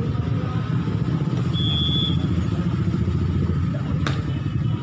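A volleyball struck hard by hand about four seconds in, one sharp smack typical of a serve. A short high whistle blast comes about a second and a half earlier, over a steady low rumble.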